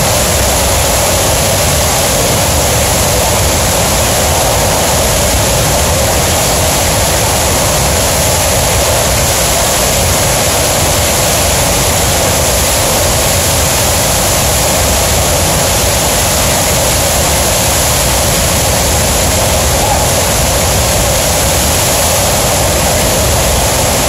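Steady loud rushing noise of Horseshoe Falls pouring down past the end of a rock tunnel behind the falls.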